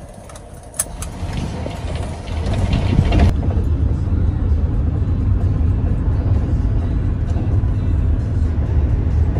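Road and engine noise inside a GMC cargo van's cabin while driving at speed: a loud, steady low rumble that swells about two seconds in.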